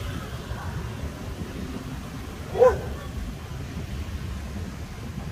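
A dog barks once, a single short bark about two and a half seconds in, over a steady low background rumble.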